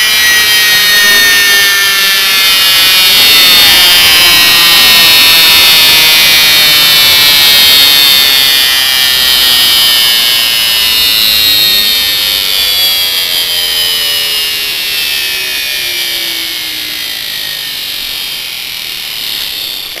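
Welling universal brushed AC washing-machine motor, its field windings wired in series with the brushes for full speed, spinning at very high revs with no load. It gives a loud high whine made of many tones that mostly glide down in pitch, fading over the second half.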